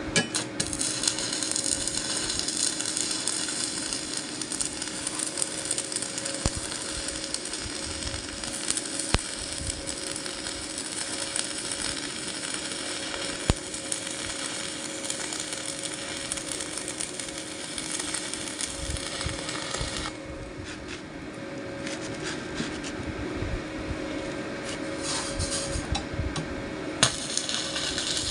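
Electric arc welding on a steel bracket: a steady crackling sizzle with sharp pops and a low hum beneath, the crackle thinning for several seconds near the end before picking up again.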